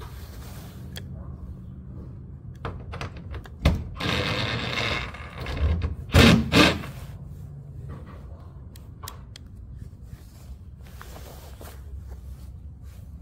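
Workers taking apart an old garage door: a power tool runs for about a second, then two loud knocks close together, over a low steady hum.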